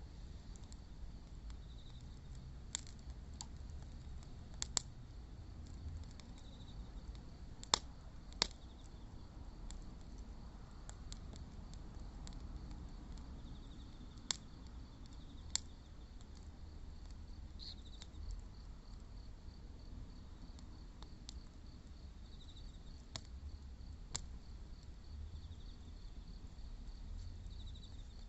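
Wood fire crackling, with a handful of sharp pops spaced a few seconds apart over a low steady rumble of the burning. Insects chirp in a high, rapid pulsing throughout, more steadily in the second half.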